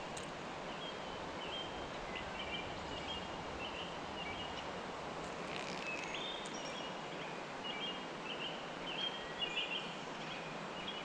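Birds chirping in short, high calls again and again over a steady outdoor background hiss.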